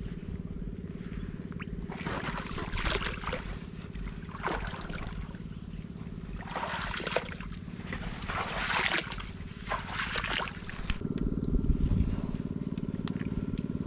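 Small boat engine running steadily, with water splashing and gurgling in several bursts; the engine gets louder about eleven seconds in.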